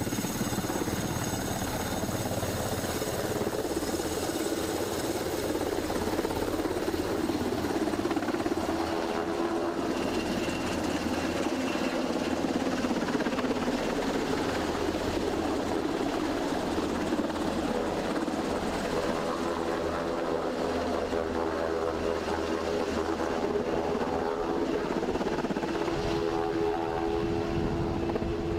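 Sikorsky Black Hawk helicopters running, a steady noise of rotor blades and turbine engines as they lift off and fly.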